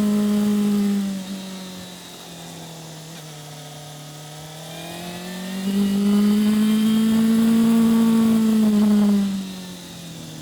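2005 Yamaha FZ6's 600 cc inline-four engine on a ride. The throttle closes about a second in and the engine note falls and goes quieter. Around six seconds the throttle opens again and the note rises and is held loud, then it falls away again near the end.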